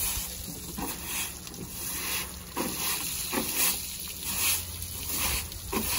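Hand washing of a pickup truck: repeated scrubbing or splashing strokes of water and brush, about one every half second to a second, over a low steady hum.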